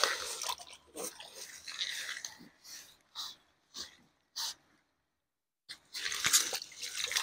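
Water splashed and sloshed over a landed common carp to wash bait off it, heard as irregular splashing and rustling handling noises with a pause of about a second past the middle.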